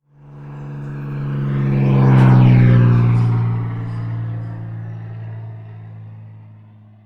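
An airplane fly-by sound effect: a low engine drone that swells to its loudest about two and a half seconds in, sweeps past, and fades away.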